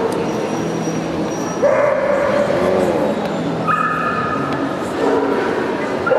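Dogs yipping and whining, several drawn-out pitched calls over the background of the show hall.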